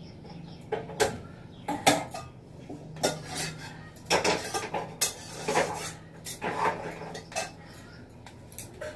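Metal pots, lids and utensils clinking and clattering on a kitchen counter and stove as they are handled, about a dozen sharp knocks coming irregularly, over a faint steady low hum.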